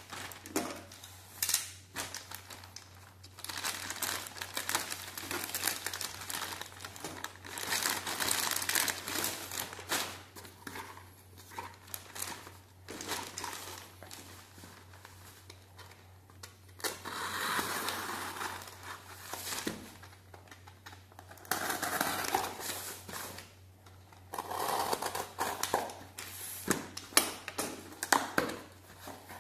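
Plastic courier mailer bag being crinkled and torn open, then a small cardboard box being handled and opened, in irregular bursts of rustling and crinkling with short pauses between.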